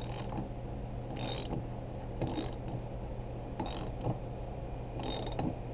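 Ratchet wrench turning the screw of a sight pusher, clicking in short bursts on each return stroke, about once a second, five times, while the pusher drives a Glock 19 rear sight through the slide's dovetail under moderate pressure. A steady low hum runs underneath.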